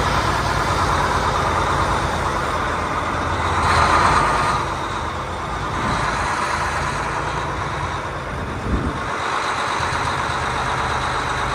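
Semi truck's diesel engine running at low speed, heard from the cab through the open driver's window as the truck moves slowly. The noise swells louder about four seconds in, and there is a short thump near the end.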